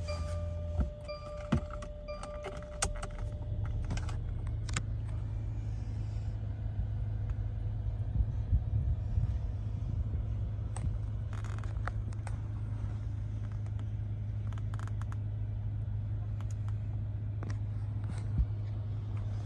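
Steady low hum of a 2015 Mercedes-Benz S550's 4.7-litre twin-turbo V8 idling in Park, heard from inside the cabin, with scattered light clicks and knocks. A steady high tone sounds for the first few seconds.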